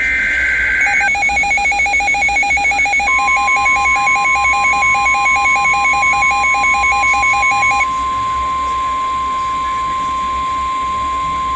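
The end of a NOAA Weather Radio SAME digital header burst, a harsh warbling data tone, then an electronic alarm beeping rapidly, about four pulses a second, for roughly seven seconds. From about three seconds in, the steady 1050 Hz Weather Radio warning alarm tone sounds alone until the end, signalling that an emergency alert message is about to be read.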